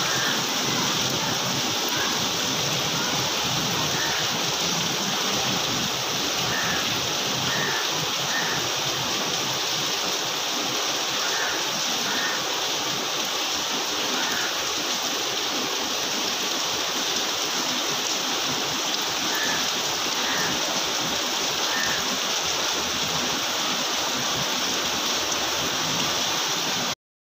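Heavy monsoon rain pouring steadily, a dense even hiss with no let-up.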